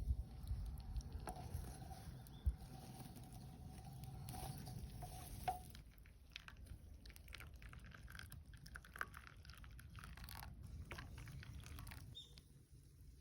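Wood fire crackling, with scattered small pops. A faint thin whistling tone runs through the first half and stops about five and a half seconds in.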